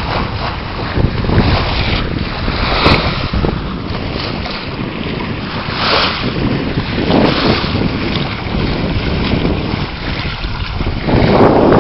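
Wind buffeting the microphone over water rushing past the hull of a sailing yacht under way, surging several times with gusts and waves and growing louder near the end.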